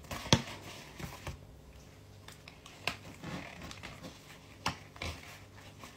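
Cardboard burger box being opened and handled on a wooden table: a few sharp clicks and taps among soft cardboard rustling.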